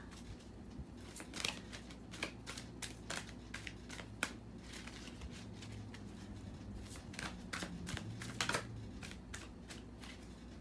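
A deck of oracle cards being shuffled by hand: a quick, irregular run of card clicks and snaps that thins out near the end.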